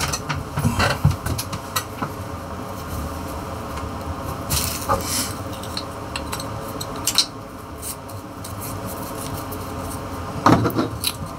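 Handling noise as jaw harps and their packaging are picked up and moved: a knock right at the start, then scattered light clicks, small metallic clinks and rustles.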